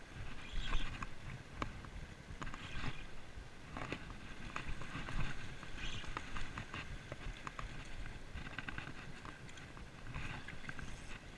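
Water washing and sloshing against shore rocks in swells, over a steady low rumble of wind on the microphone, with scattered light clicks.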